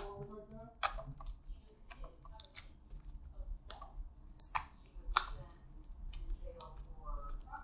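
Clear blue glitter slime being kneaded and squeezed by hand, giving sharp, irregular clicks and pops, about one or two a second.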